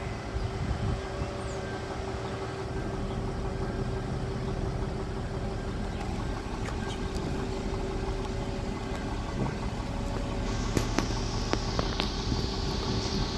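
Pickup truck engine idling steadily with a low, even hum. A hiss rises near the end.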